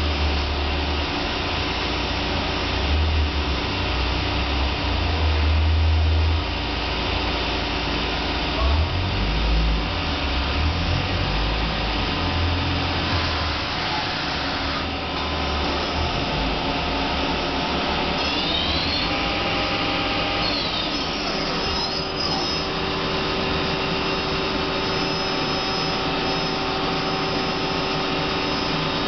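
Hardinge Quest 10/65SP CNC turning center running a program: a steady mechanical whir with several steady whining tones. There is a low rumble in the first half, and a few rising and falling whines about two-thirds of the way through.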